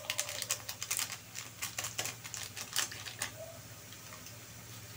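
Onion, ginger and garlic frying in oil in a pan: rapid sharp crackles and clicks for about three seconds, then a steady sizzle, over a low hum.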